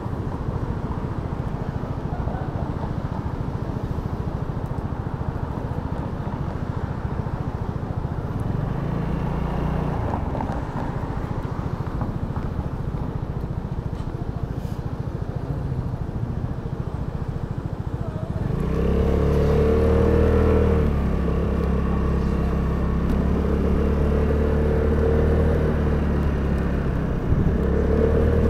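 Vespa GTS 300 scooter's single-cylinder four-stroke engine idling while stopped, then pulling away about two-thirds of the way through, its engine note louder and steadier as it accelerates, with a further surge near the end.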